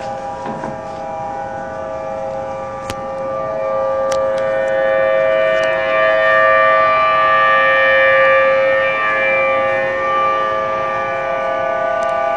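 Outdoor civil defense warning siren sounding a steady tone, swelling louder a few seconds in and easing slightly near the end: the tsunami warning signal.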